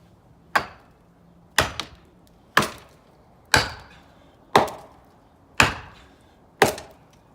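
Seven heavy, evenly spaced blows on wood, about one a second, each a sharp crack with a brief ring-out.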